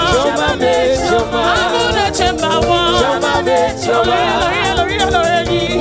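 Live gospel praise music: a band playing an upbeat song with singers, and rattling percussion keeping a fast, even beat.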